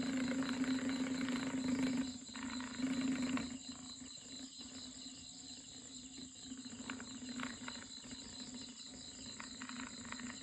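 Small DC hobby motor running steadily, spinning a plastic bottle-cut propeller with a steady buzzing hum. The hum is loud for the first three and a half seconds, then drops and goes on more quietly, with a few small clicks.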